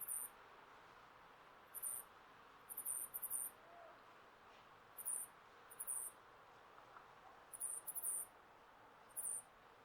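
Male Ezo flying squirrel giving very high-pitched squeaks in short bursts, some single and some in quick runs of two to four, repeated every second or two. This is the breeding-season call a male makes to attract females.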